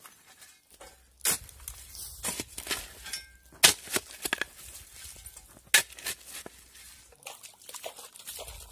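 A small metal shovel digging into dry, stony soil: three sharp strikes of the blade into the ground, with gritty scraping and the clatter of pebbles between them. Near the end, water pours from a container onto the dirt.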